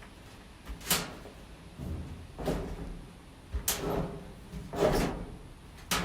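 About five separate knocks and clunks with short scrapes, spread a second or so apart, as washing machine parts and panels are handled and pushed back into place.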